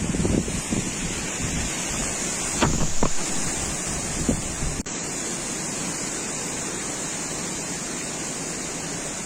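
Strong wind rushing steadily and buffeting the microphone with low gusts, with a few short knocks about three seconds in.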